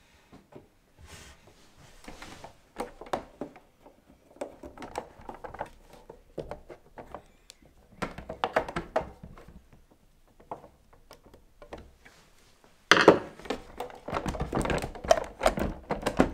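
Clicks, taps and knocks of a screwdriver and fingers working on the plastic body and underframe of an LGB large-scale model locomotive on a wooden table. A louder, busier clatter of handling comes about thirteen seconds in.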